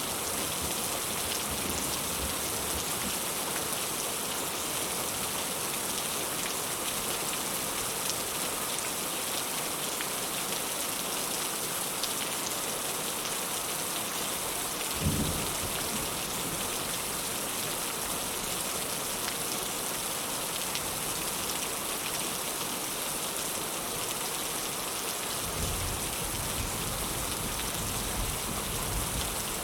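Heavy rain falling steadily, an even hiss. A brief low thump comes about halfway through, and a low rumble of thunder sets in near the end.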